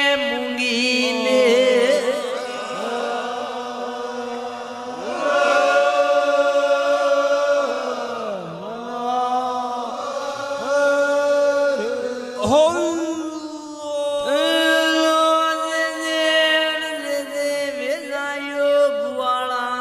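Devotional chanting of Shri Dev Narayan's name, sung in long held notes that slide in pitch.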